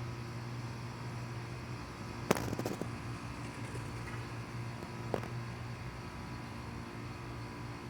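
Steady low hum with a faint higher tone, broken by a quick cluster of sharp clicks a little over two seconds in and a single click about five seconds in.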